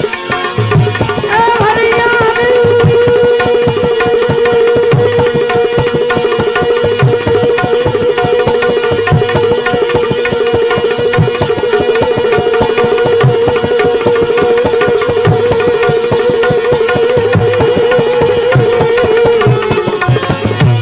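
Bhajan accompaniment with no singing. Hand drums keep a steady beat under one long melody note that is held for most of the passage and wavers near the end, with a few sliding notes early on.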